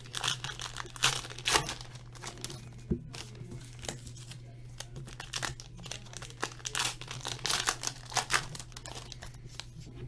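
Plastic packaging crinkling and tearing in irregular crackles as a sealed box of trading cards and its packs are opened.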